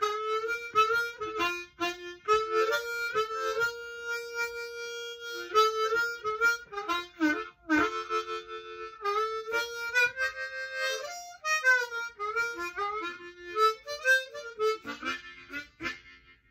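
Ten-hole diatonic harmonica in B flat played solo: short phrases and chords with bent notes, and a long held note about four seconds in. The playing trails off shortly before the end.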